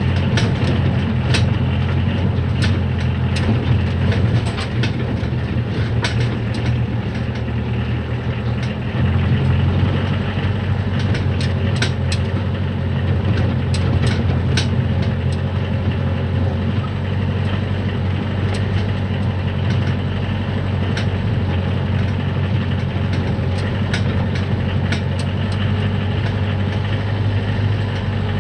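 Cab interior of a Commer BB 15 cwt diesel truck driving over rough ground: a steady diesel engine drone under frequent sharp rattles and knocks from the body jolting. The knocks are thickest in the first half and thin out later, and the engine note shifts about nine seconds in.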